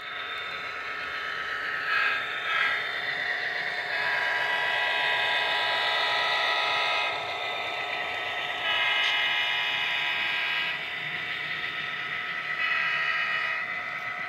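HO scale Union Pacific SD70ACe model locomotive sounding its horn in several blasts, two short, then a long one of about three seconds, another of about two seconds, and a short one near the end, over the steady running noise of the model train on the track.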